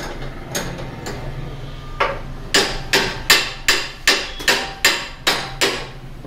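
Hammer striking metal and wood on a car radiator fixed in a clamping jig: a few light knocks, then, from about two seconds in, a steady run of about ten sharp blows at roughly two to three a second, each ringing briefly.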